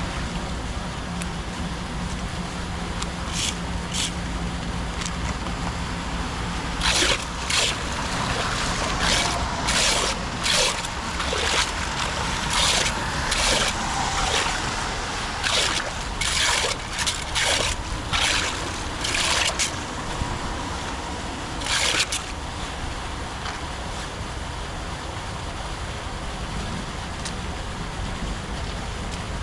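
Floodwater flowing at a clogged culvert, trickling and sloshing over a steady rush, with a run of short, sharp splashes from about 7 to 22 seconds in.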